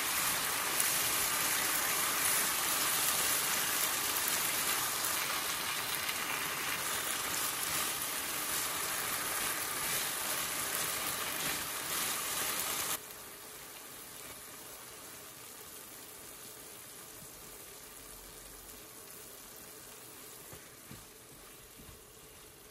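Cauliflower and soy mince sizzling and bubbling in sauce in a non-stick frying pan as a spatula stirs them. About halfway through the sizzle cuts off abruptly to a much quieter, low sizzle with a few small ticks.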